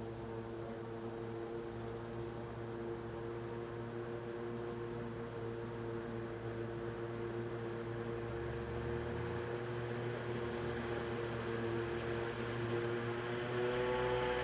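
Corn-harvesting farm machinery running: a steady engine drone with a steady whine over it, growing gradually louder toward the end.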